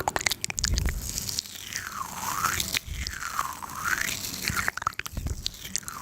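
Close-miked crunching and chewing, with a burst of crisp clicks at the start and a swishing sweep that dips and rises about every second and a half.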